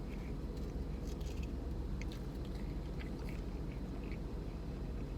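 A person chewing a mouthful of spicy chicken nugget dipped in ranch, with soft, irregular wet clicks of chewing over a steady low background hum.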